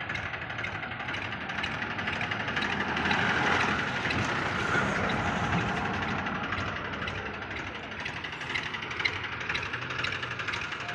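Tractor diesel engines running under load while pulling a stuck, straw-laden trailer, getting louder for a few seconds near the middle.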